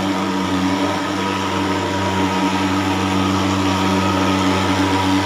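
Portable pulse-jet thermal fogging machine running with a steady, loud drone as it blows out insecticide fog against mosquitoes.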